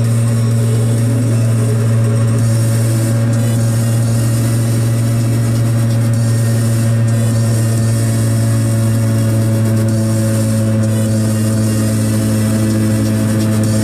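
Piaggio Ape 50's small two-stroke single-cylinder engine running at a steady cruising speed on the move, a constant drone that holds one pitch throughout.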